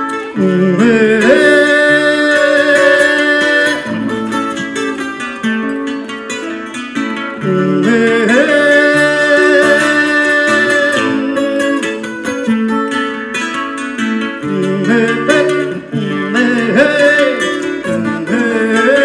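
Brazilian viola picked with a thumb pick, playing melody over chords as an instrumental introduction. The phrase repeats about every seven seconds, and several notes slide into pitch.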